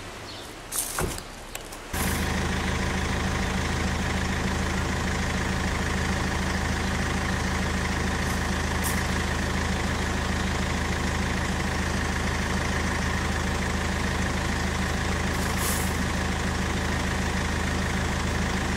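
An engine idling steadily with an even, unchanging low hum, starting abruptly about two seconds in.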